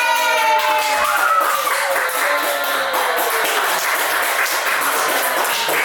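A group of children cheering, with long shouts falling slowly in pitch, over a dense patter of clapping.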